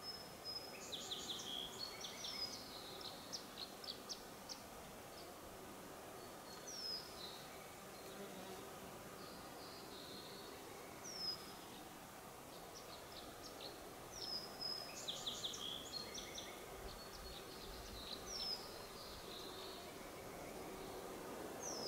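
Wild birds calling and singing: one short, high falling whistle repeated about every four seconds, with two bursts of quick high chirping near the start and about two-thirds of the way through, over a faint steady background hum.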